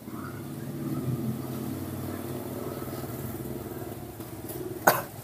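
A steady low motor hum, with a single sharp knock near the end.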